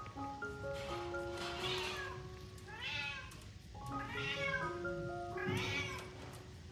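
Newborn kittens mewing: several high, short cries that rise and fall in pitch, over background music of held notes.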